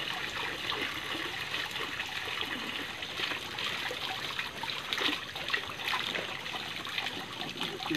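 Steady trickle of water running into a small fish pond, with light splashing throughout.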